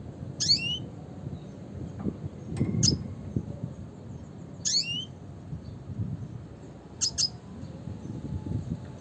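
Red siskin calling: short, high chirps, each a quick downward slur, about every two seconds, with the last one doubled. A low background rumble runs underneath.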